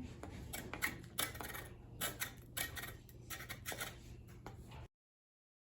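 Irregular clicks and short scrapes of a hand tool working on a small wooden chair, cutting off abruptly to silence near the end.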